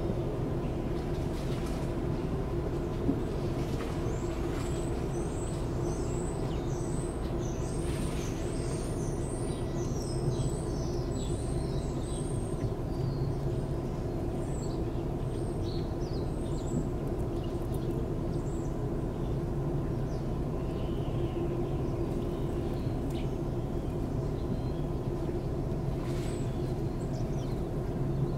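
A steady, low machine hum with an unchanging pitch. Over it, a run of quick, high bird chirps from about four to thirteen seconds in, and a few scattered chirps later.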